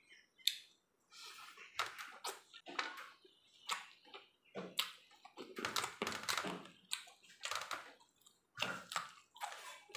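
A person eating rice and curry by hand: faint, irregular wet chewing and mouth smacks with small clicks, coming every half second or so.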